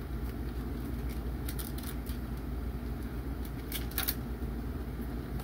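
Small plastic toy-playset pieces handled, clicking and rattling, with a few sharp clicks about a second and a half in and again around four seconds in, over a steady low hum.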